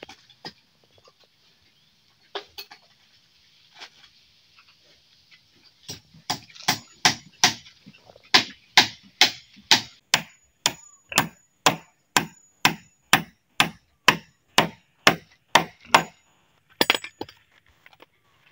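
A hammer striking wood: a few scattered knocks, then a steady run of blows, a little over two a second, for about ten seconds, stopping shortly before the end.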